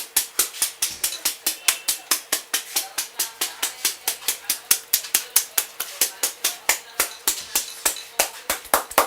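Hands tapping rapidly and rhythmically on a person's head in an Indian head massage, about six sharp slaps a second.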